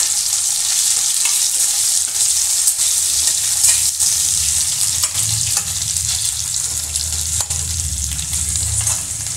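Boiled potato pieces sizzling steadily as they fry in hot oil in a stainless steel kadhai, with a spatula scraping and clicking against the pan now and then as they are stirred.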